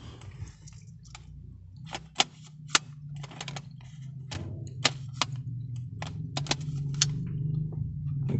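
Scattered sharp clicks and light scrapes of a Nikkor 18-55mm kit lens being fitted and twisted onto a Nikon D5100's bayonet mount, the two loudest clicks a little after two seconds in. A steady low hum runs underneath.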